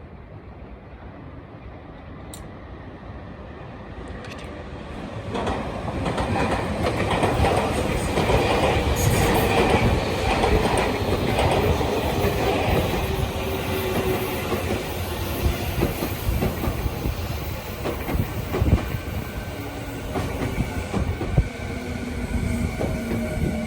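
A Tobu Railway electric train coming through the station: its rumble and wheel clatter on the rails rise sharply about five seconds in and carry on loudly. Near the end, a steady tone from the train's motors is heard over the rumble.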